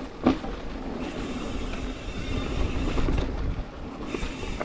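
Ibis Ripley mountain bike rolling over a dirt trail: a steady rumble of tyres on the ground with rattle from the bike. There is a sharp knock about a quarter second in.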